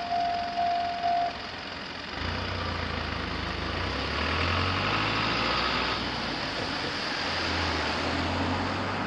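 Level-crossing warning bell chiming about twice a second, stopping just over a second in; then a motor vehicle's engine runs steadily with road noise as traffic moves over the crossing.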